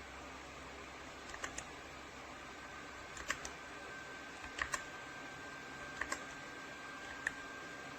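A few scattered keystrokes on a YUNZII AL66 aluminum mechanical keyboard, sharp clicks coming singly or in quick pairs with pauses between them.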